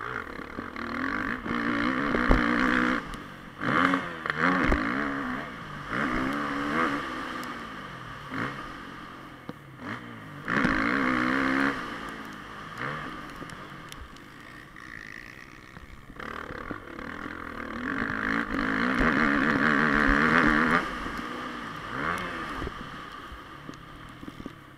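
Motocross dirt bike engine revving and easing off again and again as the bike accelerates and slows, its pitch climbing and dropping with the throttle. It runs loudest about a second in, around ten seconds in, and from about eighteen to twenty-one seconds in.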